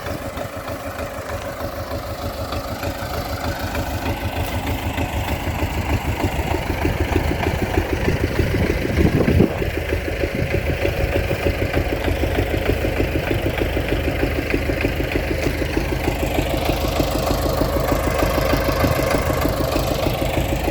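Tractor engine running steadily at idle close by, a rapid even chugging that grows louder over the first several seconds, with a brief louder swell about nine seconds in.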